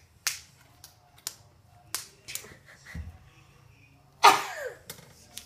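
A woman sneezing once, loudly, into her hand. It comes about four seconds in and follows a few short, sharp sounds.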